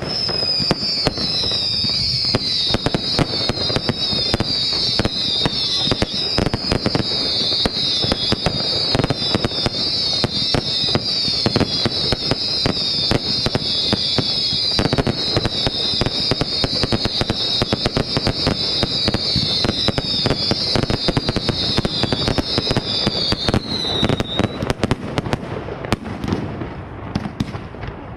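Fireworks going off in a dense barrage of bangs and crackling, with many overlapping high whistles, each falling slightly in pitch. The whistles stop about 24 seconds in, leaving thinner crackles and bangs.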